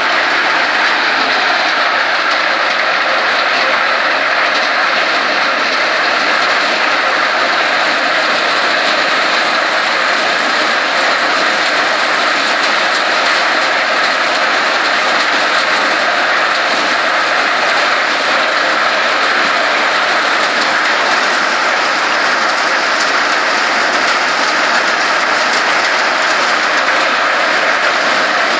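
Crop Power multi-crop thresher running while threshing maize: a loud, steady, even mechanical noise with no breaks.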